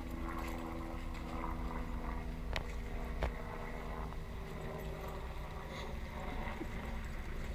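A steady low motor hum over a constant low rumble, fading after about five seconds, with two sharp clicks near the middle.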